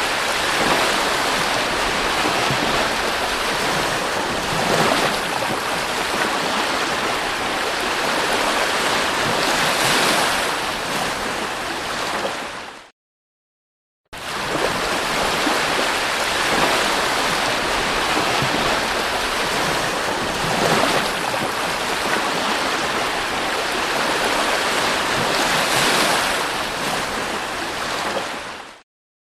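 Sea surf washing onto the shore: a steady rush of waves swelling a little every few seconds. It fades out about 13 seconds in, is silent for about a second, then comes back and fades out again near the end.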